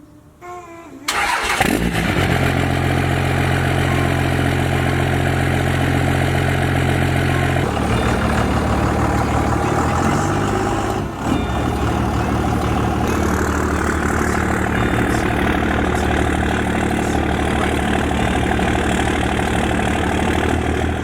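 1993 first-gen 12-valve Cummins inline-six turbo diesel, fitted with a new turbo, fires up about a second in and then runs steadily, its pitch shifting about eight seconds in.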